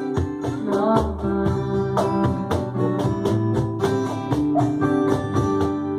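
Cajón played along to a guitar-backed pop song, the drum hits falling about twice a second over sustained chords, with a short sung phrase about a second in.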